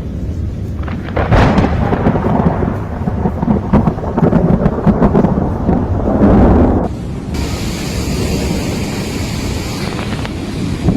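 A thunderclap about a second in, then thunder rumbling and crackling for several seconds. It cuts off abruptly about seven seconds in, and a steady hiss follows.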